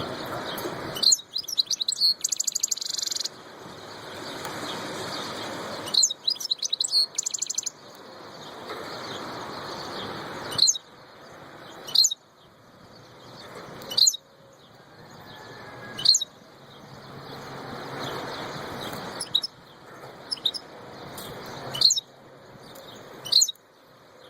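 European goldfinch singing: sharp high chirps about every two seconds, with two fast trills in the first several seconds, over a hiss of background noise that swells and drops between phrases.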